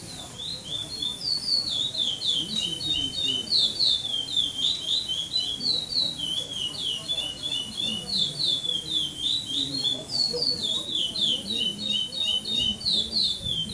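A curió (chestnut-bellied seed finch), a young male still in brown plumage, singing a long, near-unbroken 'praia clássico' tournament song of rapid, clear whistled notes. The song runs about thirteen seconds and stops just at the end.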